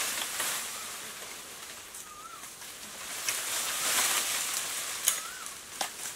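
Bamboo leaves and stems rustling as branches are pulled and shaken, swelling about three to five seconds in, with a few sharp cracks near the end.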